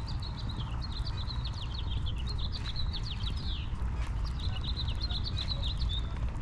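A small songbird singing rapid chattering trills of short, quick, downward-sliding chirps, one long phrase and then a shorter one after a brief pause, over a low steady background rumble.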